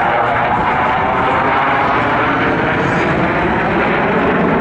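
Jet engines of a formation of F-16 fighter jets flying over, a loud, steady rushing roar.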